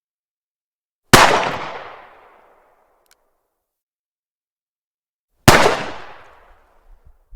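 Two single 9mm pistol shots, about four seconds apart, each a sharp crack trailing off in an echo that lasts over a second.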